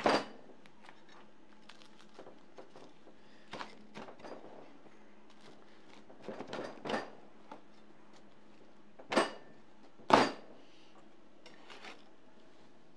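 Chinese cleaver chopping a roasted rack of lamb into rib pieces on a cutting board: about five sharp chops a few seconds apart, the two loudest about nine and ten seconds in, with lighter knife taps between.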